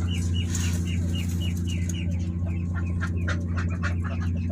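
Newly hatched ducklings peeping, a string of short high calls about three a second, over a steady low hum.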